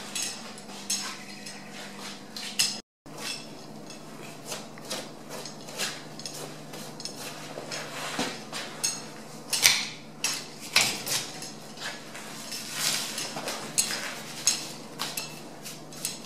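Irregular sharp metallic clinks and scrapes as a deer carcass hanging from a gambrel is skinned with a knife, over a steady low hum.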